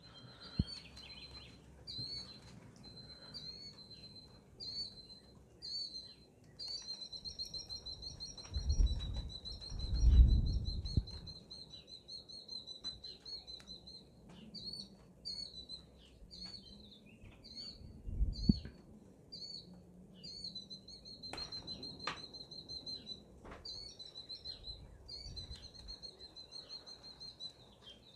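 Killdeer calling over and over: short shrill calls about once a second, breaking now and then into long trills. A few low rumbles come through as well, the loudest about a third of the way in and another just past halfway.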